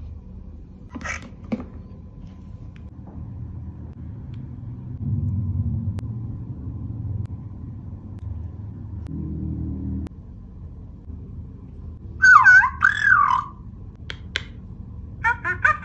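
A low rumbling hum for the first ten seconds, strongest from about five seconds in. After about twelve seconds, an interactive plush toy creature's electronic voice gives two short bursts of chirps with sliding pitch, the second near the end, as its forehead is touched with its toy wand.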